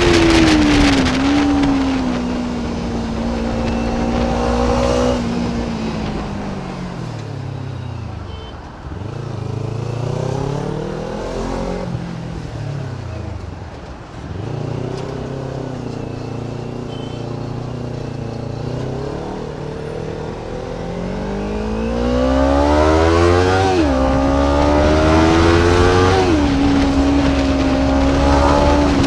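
Kawasaki Ninja 300's parallel-twin engine on the move: it slows, dropping low twice in the first half, then accelerates with two quick upshifts near the end before holding a steady cruise.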